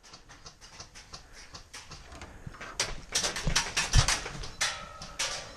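Airsoft guns firing: scattered sharp cracks, then a rapid irregular string of them from about three seconds in, with one heavier thump about four seconds in.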